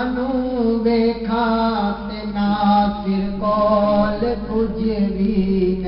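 A man sings a Punjabi naat into a microphone in long, held melodic phrases, over a steady low drone.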